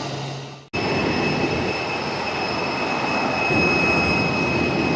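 Jet airliner engines running: a steady rush with a high, even whine. It fades out briefly, then cuts straight back in under a second in.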